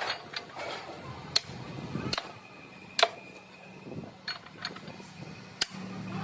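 Scattered sharp metal clinks and knocks, about one every second, from tools on steel breaker parts. A faint low steady hum comes in about halfway through.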